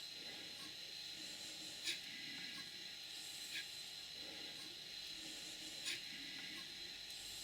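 Duplex steam boiler feed pump running slowly: a steady hiss of its driving air or steam, with a sharp click about every two seconds as the valves shift at each stroke.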